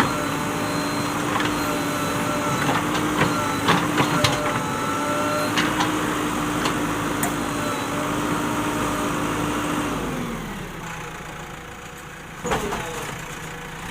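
JCB 3DX backhoe loader's diesel engine running steadily under working revs, with scattered sharp knocks. About ten seconds in the engine note drops away as the revs fall, followed by a single loud knock near the end.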